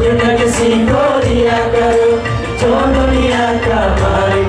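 A young man's solo voice, amplified through a handheld microphone, singing long wavering melodic lines over live band accompaniment with a steady low beat.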